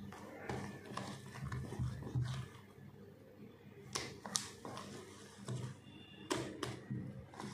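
Thick cake batter squelching as a hand kneads and mixes it in a stainless steel bowl, with a few sharp knocks against the bowl about four seconds in and again near the end, over a low steady hum.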